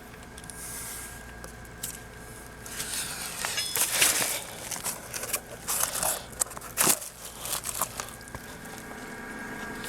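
Irregular rustling, crinkling and scraping of materials being handled, busier from about three seconds in, with a few sharp clicks and a faint steady hum underneath.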